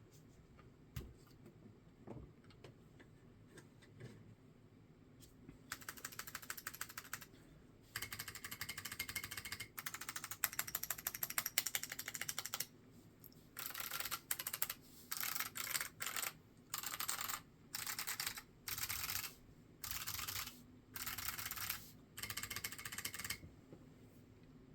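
Typing on a Seal 80 keyboard fitted with SMK 2nd-generation clicky switches and MT3 keycaps. It begins with scattered single keystrokes, then goes to long runs of fast clicky typing, and in the second half to short bursts of rapid keystrokes with brief pauses between them.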